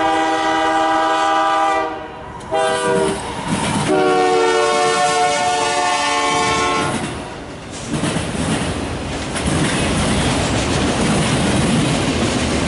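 Canadian Pacific diesel freight locomotive sounding its multi-chime air horn: a long blast ending about two seconds in, a short blast, then a blast of about three seconds. The locomotives and autorack cars then roll past with a steady rumble and the clickety-clack of wheels on the rails.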